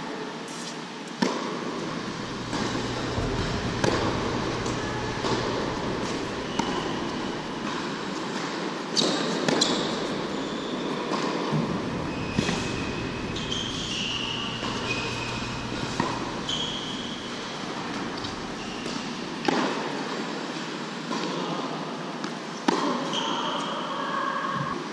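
Tennis balls struck by rackets and bouncing on an indoor hard court during a rally, sharp pops every second or two that echo in the large hall. A few short high shoe squeaks on the court come in the middle.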